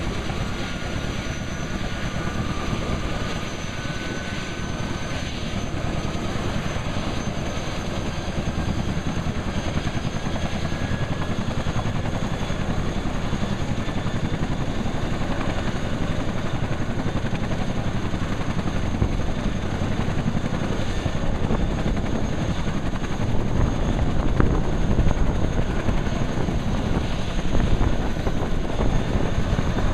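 Boeing CH-47 Chinook's twin-turbine engines and tandem rotors running on the ground during warm-up: a steady, dense rotor beat with a thin high whine over it. It grows a little louder, with stronger pulses, over the last several seconds.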